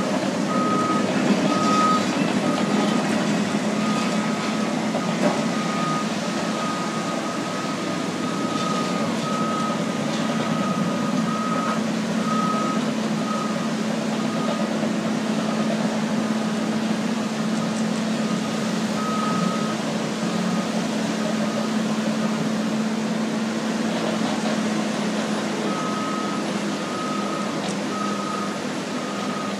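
Diesel bulldozers running steadily while working sand, with a backup alarm beeping about one and a half times a second. The beeping stops for about a dozen seconds midway and starts again near the end.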